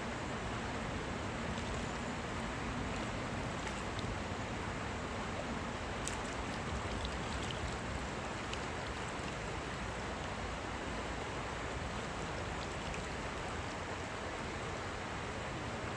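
Steady rush of river water flowing, with a few faint small clicks, the clearest about six seconds in.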